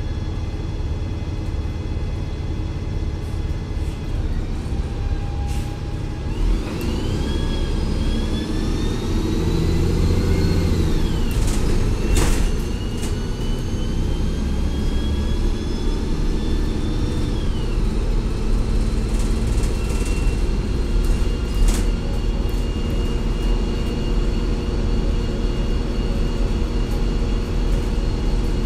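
A 2004 Gillig Advantage T29 transit bus running on its Cummins ISL diesel with Voith D864.3E transmission, a steady low rumble throughout. About six seconds in, a high whine rises and climbs steadily as the bus works harder, then drops about seventeen seconds in and settles to a steadier whine. Two sharp knocks or rattles come partway through.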